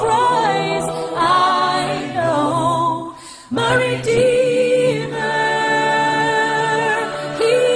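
A Christian song's singing voices, holding long notes with vibrato, with a brief break about three seconds in.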